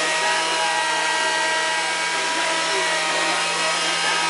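Woodworking lathe running steadily: an even motor whine with a hiss over it, holding at one speed.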